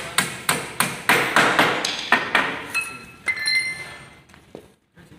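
Hammer striking nails into the wooden slats of a crate: a run of sharp strikes, two to three a second, some with a short metallic ring. They thin out and stop about four seconds in.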